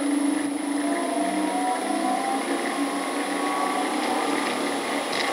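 Vintage Crompton 7.5 hp electric motor idling unloaded on an undersized 2 hp variable-frequency drive: a steady hum with a whine that rises a little in pitch a second or so in.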